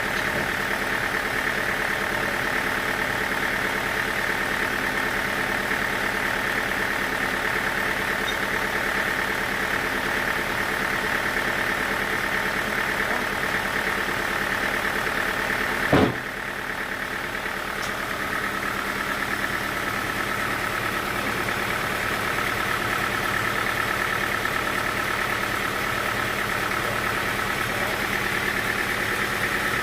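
Sawmill machinery running steadily at idle: an even, engine-like hum with several steady tones and no cutting. There is one sharp click about halfway through, after which the hum carries on with a slightly changed tone.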